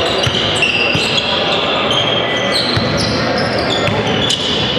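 Basketball game on a gym court: the ball knocking on the hardwood, sneakers squeaking in short high squeals, and a steady hum of crowd and player voices.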